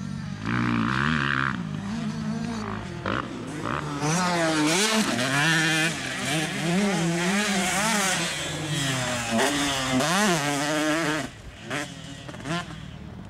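Motocross bike engine revving, its pitch rising and falling again and again as the throttle opens and shuts. The sound drops away sharply about eleven seconds in.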